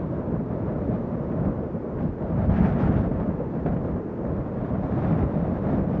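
Wind blowing in gusts, a deep rumbling rush that swells about halfway through and again near the end.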